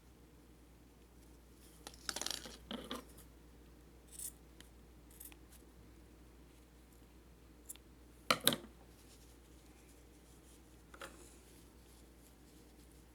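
Scissors snipping yarn: a few short, sharp cuts and clicks, a cluster of them about two seconds in and a louder double snip about eight seconds in.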